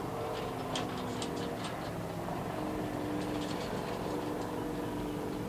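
Jetboat engine running at a steady pitch.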